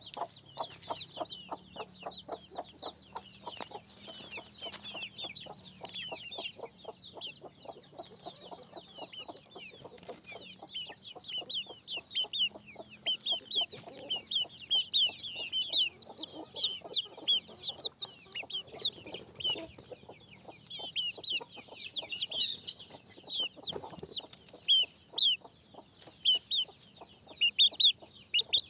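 Chickens clucking, with many short, high, falling chirps overlapping. Rapid, evenly spaced clucks dominate the first third, then the chirping grows denser and louder.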